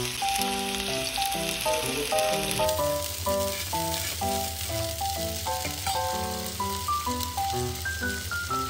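Meatballs sizzling in oil in a nonstick frying pan, over a light background melody. The sizzle drops lower about three seconds in, and a low hum joins it.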